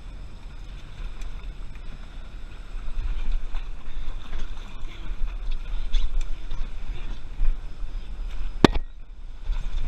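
Low, uneven rumble of wind and water around a small boat, with no clear engine note. A single sharp click or knock comes near the end.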